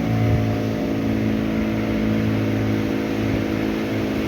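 Boat's outboard motor running steadily at constant speed, a low even drone.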